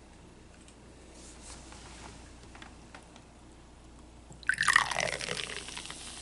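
Carbonated soda poured from a can into a small glass, starting suddenly about four and a half seconds in with a splashing pour that falls in pitch and settles into fizzing foam. Before that only a few faint taps.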